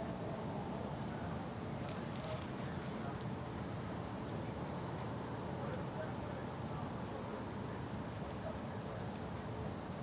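Cricket chirping steadily: a high tone pulsing in rapid, even beats without a break, over a low background hiss, with one faint click about two seconds in.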